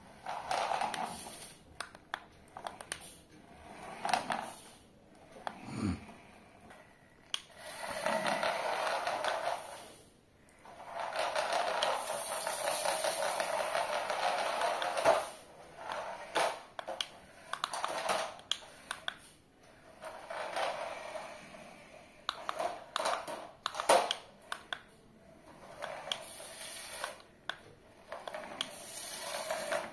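Toy 360° rotating RC stunt car's small electric drive motors and gearboxes whirring in repeated stop-start bursts as it drives, spins and flips, with one longer steady run in the middle. Scattered clicks and knocks come from the car's body and wheels hitting the hard floor.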